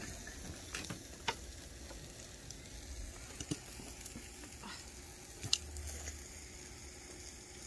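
Food sizzling in a hot pan, a steady frying hiss with a few sharp pops.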